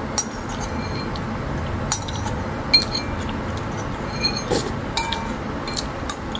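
Metal spoon clinking against a ceramic bowl, a dozen or so light taps scattered irregularly, several with a brief high ring, as sauce is scooped from the bottom.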